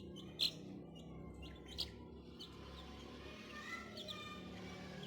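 Small birds chirping now and then: short, high chirps, the loudest about half a second in and a quick run of them a little before the end, over a faint steady low hum.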